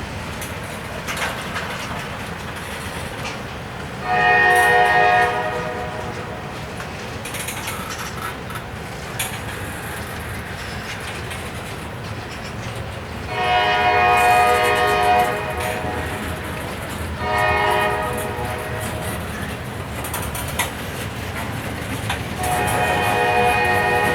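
Freight locomotive air horn sounding the grade-crossing signal, long, long, short, long, with the last blast running on past the end. Between the blasts a freight train rumbles with wheel clatter.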